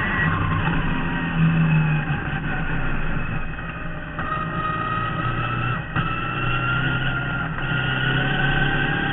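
A 1972 Marcos GT's V8 race engine, heard from inside the cockpit, running hard under load. It eases briefly around four seconds in, then rises steadily in pitch as the car accelerates.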